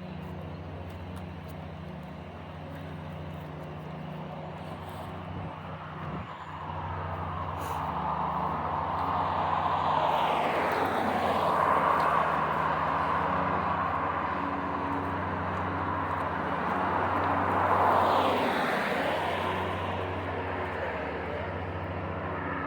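Road traffic: vehicles passing, the two loudest swelling and fading about ten and eighteen seconds in, over a steady low engine hum.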